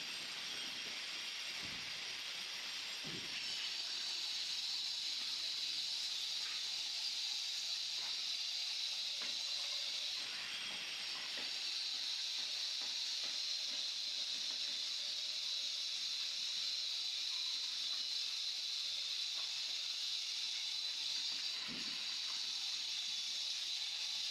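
Steady high-pitched hiss, with a few faint taps and scrapes as a stone stair tread is pressed and shifted into wet mortar.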